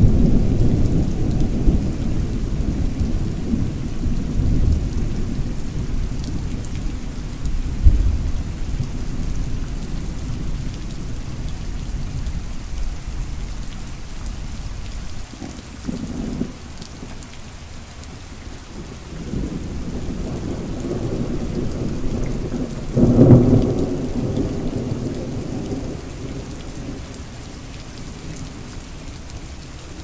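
Moderate thunderstorm: steady rain hissing throughout, with rolling thunder. A rumble fades away at the start, a sharp clap comes about a quarter of the way in, a short rumble near the middle, and a louder peal about three quarters through, then the rain carries on alone.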